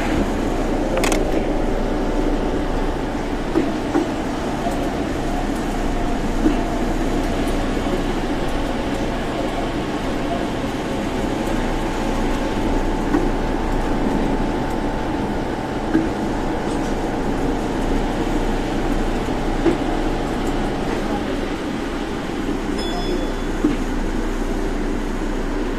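Osaka Monorail train running on its elevated concrete guideway, heard from inside the car: a steady running rumble with a hum of several tones, and a short light knock every few seconds. The hum eases off near the end.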